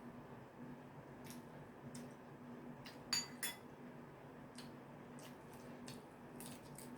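Cutlery clinking against a dish, two ringing clinks in quick succession about three seconds in, with faint scattered clicks around them. A low steady hum runs underneath.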